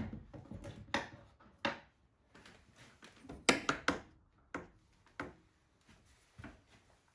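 Irregular sharp knocks and clacks of tools and pieces of wood being handled and set down, about nine hits, loudest at the very start and in a quick run of three about three and a half seconds in.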